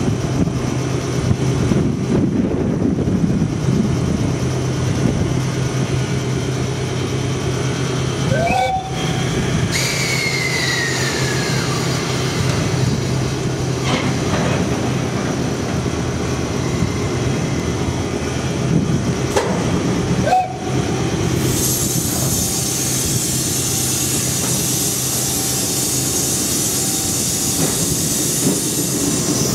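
Chichibu Railway Deki 300-class electric locomotive standing with a steady hum from its air compressor, broken by two brief rising squeals and a falling whine. About two-thirds through, a loud steady hiss of air starts as the brakes release and runs on to the end.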